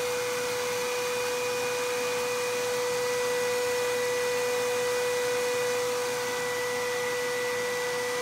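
A high-voltage Tesla hairpin circuit driving a microwave oven's AC fan motor: a steady, even hum at one pitch over a hiss, which means the motor is turning on the circuit's power.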